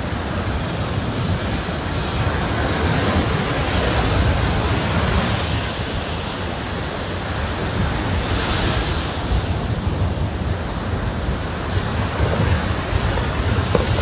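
Ocean surf breaking and washing up a sandy beach, a steady rush of noise with a heavy low rumble from wind on the microphone.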